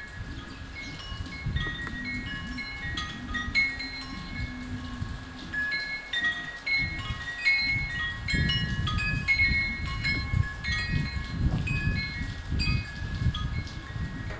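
Wind chimes ringing in scattered, overlapping high notes, over an uneven low rumble that grows stronger about halfway through.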